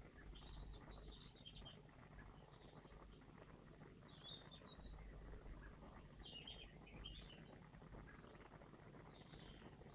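Faint high chirps of small songbirds in four short bursts, over a low steady background rumble.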